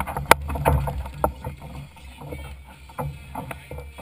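Wind buffeting the microphone with a steady low rumble, overlaid by scattered short knocks and clicks, the sharpest about a third of a second in.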